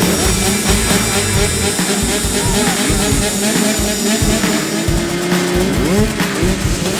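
Two-stroke motocross bikes revving hard, their pitch rising and falling through the gears, mixed with background music.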